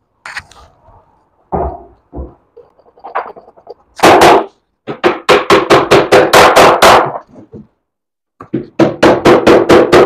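A few light knocks, then two quick runs of hard hammer blows, about five a second: bolts being driven through drilled holes in a plywood sofa armrest.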